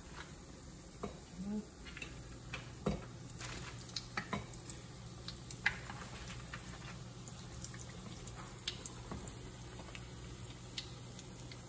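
Battered Oreos frying in hot oil in a pan, with scattered sharp taps and clicks of a utensil against the pan. A low steady hum comes in about two seconds in.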